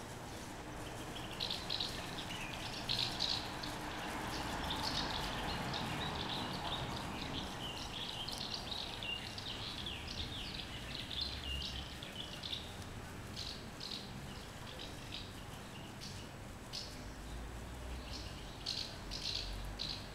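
House martins calling, with quick runs of short high chirps throughout, over a low background rumble.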